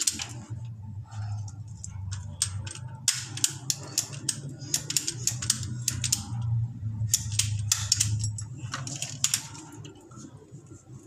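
Irregular sharp clicks and snaps of plastic water-pipe fittings and a hand pipe tool being worked, over a low steady hum.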